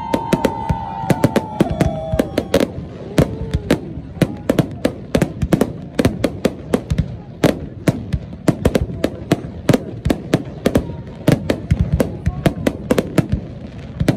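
Aerial fireworks display: a dense, continuous barrage of shells bursting, many sharp bangs a second, with crackle between them. A drawn-out tone, falling slightly, runs through the first two seconds or so.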